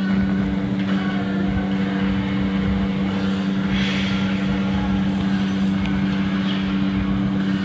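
A machine's steady, even hum, with a short hiss about four seconds in.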